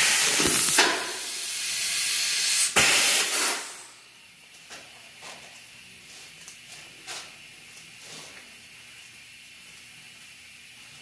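Compressed air hissing loudly from the air-powered epoxy injection machine, in three long bursts over about four seconds. It then drops to a faint background with a few light clicks.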